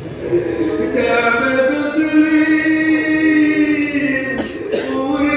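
A man's voice chanting a supplication in long, drawn-out held notes, amplified over loudspeakers. There is one long phrase, a short break about four seconds in, and then the next phrase begins.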